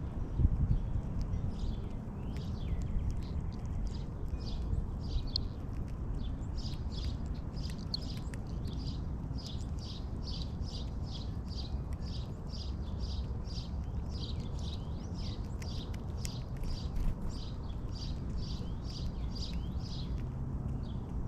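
A bird calling in a long series of short chirps, about two a second, sparser at first and stopping shortly before the end, over a steady low background rumble.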